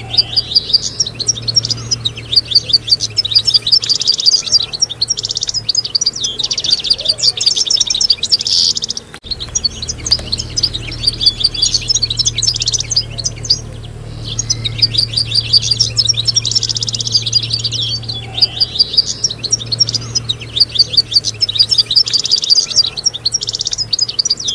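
European goldfinches singing together: a fast, tinkling twitter of high notes that runs almost without pause, briefly breaking off about nine seconds in. A faint steady low hum lies underneath.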